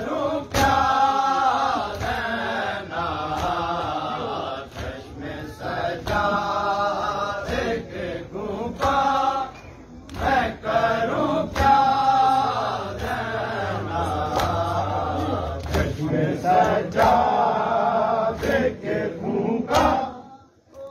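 A group of men chanting a Shia noha lament together, with sharp rhythmic chest-beating (matam) slaps keeping the beat. The sound dips briefly near the end.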